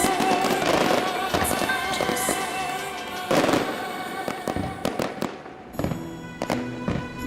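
Fireworks bursting, several loud bangs and then quicker small crackles, with music playing under them.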